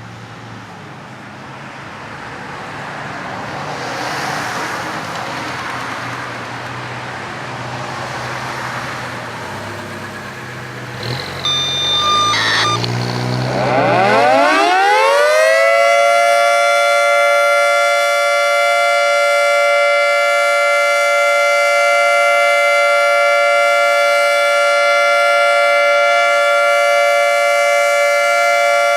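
Federal Signal 2T22A dual-tone siren starting up. About twelve seconds in, after a short burst of electronic tones, it winds up in a rising glide and settles into a loud, steady two-tone chord. Before the wind-up there is a low rumble of engine or traffic noise.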